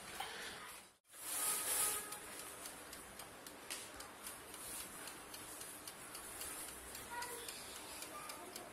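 Faint scattered ticks and clicks from a small electric oven with a dial timer while it bakes, after a short burst of hiss about a second in.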